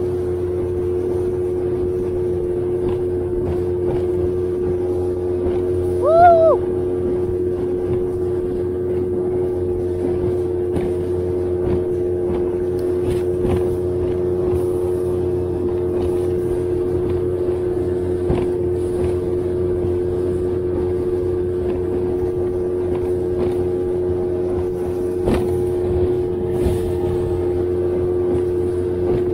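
Small boat's outboard motor running steadily underway, a constant drone. About six seconds in, a brief whistle-like tone rises and falls over it and is the loudest moment.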